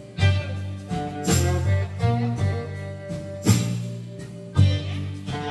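Instrumental background music with a steady beat of strong hits about once a second over a bass line.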